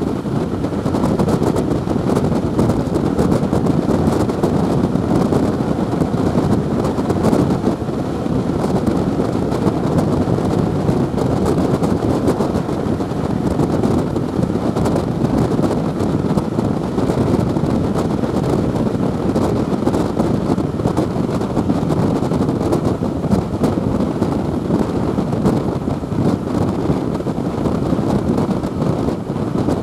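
Steady wind rushing over a microphone held out of the window of a fast-moving passenger train, over the constant rumble of the coaches running along the track.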